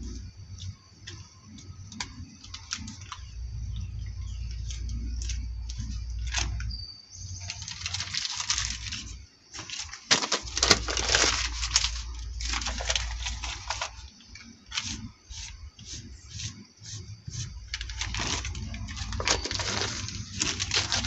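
Crumpled plastic sheet and paper towel crinkling as they are handled: scattered crackles at first, then louder, choppy bursts of crumpling from about seven seconds in.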